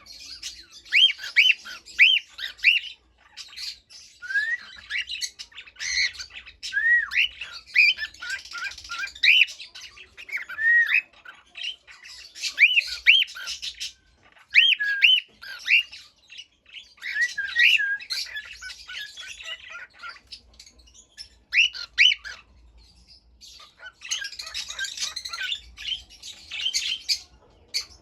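Cockatiels chirping: runs of short, quick rising-and-falling chirps, several a second, broken by brief pauses and mixed with harsher, scratchy squawks.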